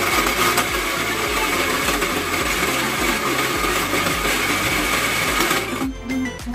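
Electric countertop blender running, blending a mango shake with a steady high whine; it stops abruptly near the end.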